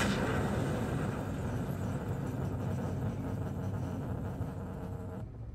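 Sustained low rumbling sound effects from an animated Star Wars parody, cutting off suddenly about five seconds in.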